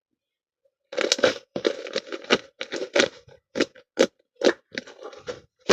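Slime being squeezed and worked by hand, making a quick irregular series of sharp pops and clicks as air pockets burst, starting about a second in.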